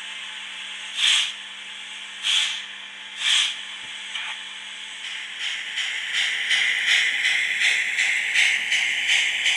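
Sound decoder of a model SNCF 141 TA steam tank locomotive: a steady hiss broken by three short, loud blasts of steam, then about five seconds in the exhaust beats start, chuffing about three times a second as the locomotive pulls away.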